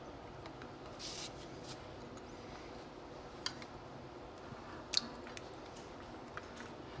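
Faint handling noises as the bullet connectors on a Bafang BBS02 mid-drive's phase wires are pulled apart by hand: a soft rustle about a second in and a few small clicks, the sharpest near the end.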